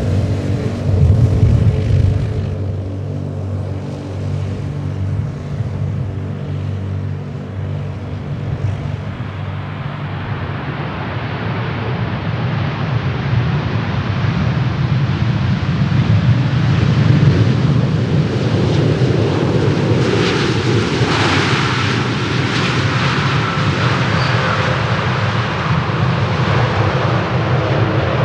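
Jet airliner engines rumbling, growing louder as the aircraft passes and loudest a little past the middle, with a hissing high end joining near the end.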